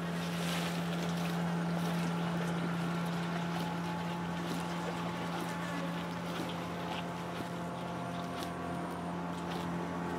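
A steady, low motor drone with a constant hum, unchanging throughout, with a few faint clicks over it.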